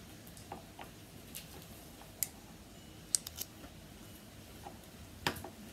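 Faint scattered clicks and light taps from handling a paintbrush and a small plastic craft-paint pot at a table; the loudest tap comes about five seconds in.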